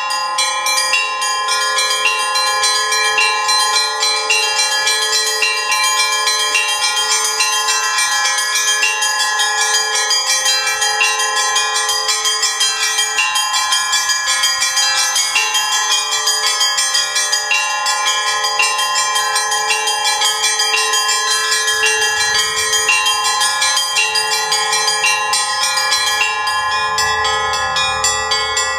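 Russian Orthodox-style church bell ringing: several bells of different pitches struck in a fast, unbroken rhythmic peal.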